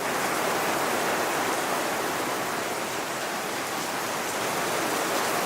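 Heavy rain pouring down in a steady, dense hiss: a downpour.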